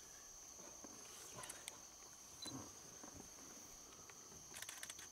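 Faint night insects, a steady high cricket-like trill, with a few soft clicks and rustles of dry grass and straw underfoot as a crab-eating fox forages, several of them close together near the end.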